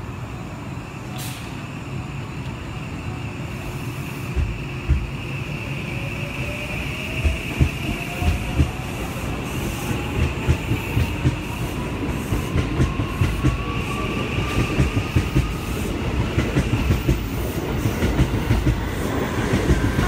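A JR West 103 series electric train pulls away from the platform. Its traction motors whine, rising slowly in pitch as it gathers speed. The wheels clack over the rail joints, the clacks coming faster and louder in the second half.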